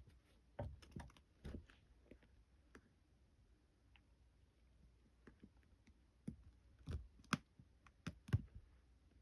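Kittens at play, making irregular light taps, scuffs and soft thumps. The sounds come in a cluster early on and another near the end, where the loudest thump falls.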